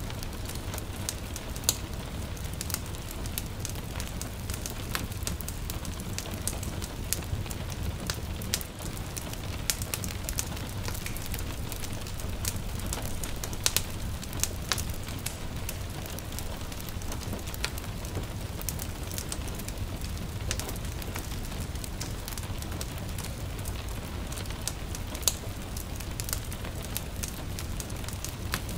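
Wood fire crackling with frequent scattered sharp pops, over a steady hiss of light rain and a low rumble.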